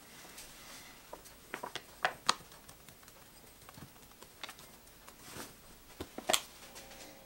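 Flour poured from a bag into a drinking glass: a faint pouring hiss with the bag crinkling, and a scatter of sharp light clicks, the loudest about two seconds and six seconds in.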